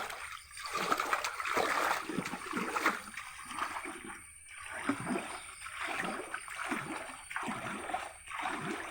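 Water splashing and sloshing in repeated strokes, about one a second, as hands paddle a small floating craft along.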